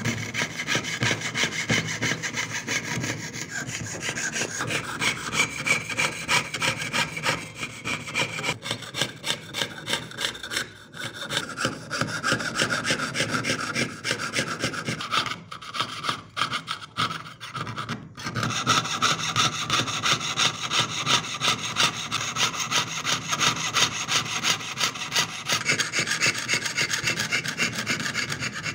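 Jeweler's saw cutting through thin engraved metal sheet, piercing out the background of the design: rapid up-and-down rasping strokes. The strokes stop briefly a few times a little past the middle, then carry on.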